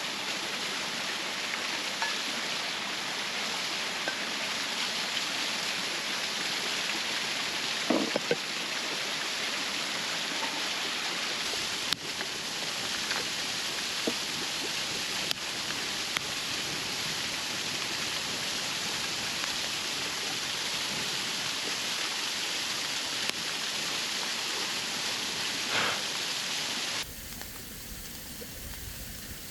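Waterfall rushing steadily, with a few soft knocks over it. Near the end the rush drops to a quieter, thinner hiss.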